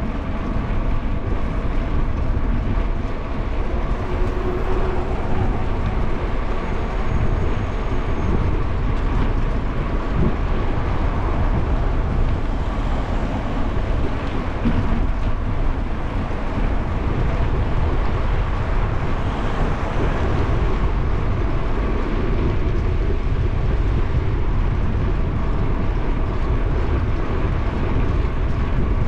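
Steady riding noise of a bicycle on an asphalt bike lane: wind rushing over the camera microphone and tyres rolling, with a faint steady hum.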